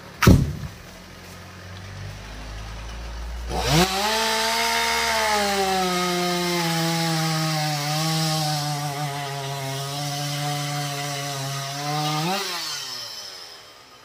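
A heavy thump as a cut section of teak trunk hits the ground. Then a two-stroke chainsaw idles, is revved up about four seconds in and held at steady high speed for about eight seconds, and near the end gets a quick rev before it drops back and fades away.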